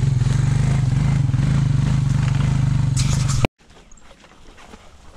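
Small vehicle engine running steadily close by, of the kind on an ATV or utility vehicle, then cut off suddenly about three and a half seconds in, leaving faint outdoor sounds.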